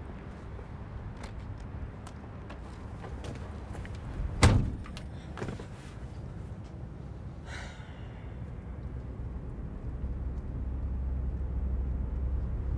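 A Volkswagen T3 van's door slams shut about four and a half seconds in, followed a second later by a lighter knock. A low engine rumble runs underneath and grows louder over the last few seconds.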